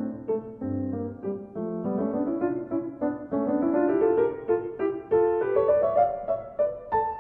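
Background piano music, a run of notes climbing steadily in pitch through the middle.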